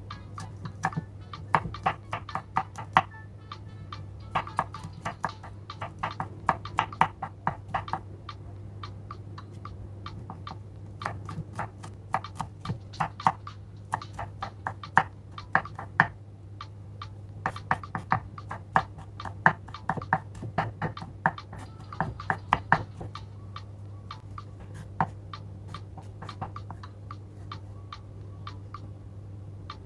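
Kitchen knife chopping on a cutting board in quick runs of strokes, several a second, with pauses between runs and a steady low hum underneath.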